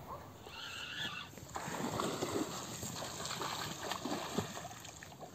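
Water splashing as a hooked huchen (Danube salmon) thrashes at the surface, with irregular knocking and rustling that starts about a second and a half in.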